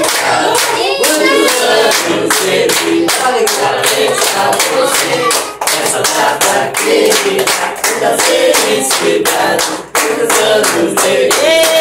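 A group of people clapping together in steady time, about three claps a second, while voices sing along: a birthday song being sung around the cake.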